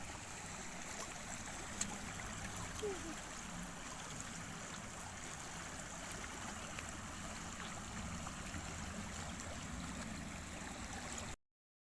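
River water flowing, a steady rushing noise that cuts off abruptly near the end.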